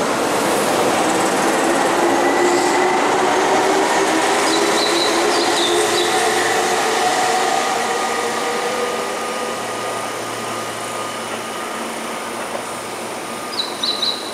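Keihan electric commuter train running along the station platform: a loud rush of wheels with a steady motor whine that fades after about eight seconds. Short, high wheel squeals chirp around the middle and again near the end.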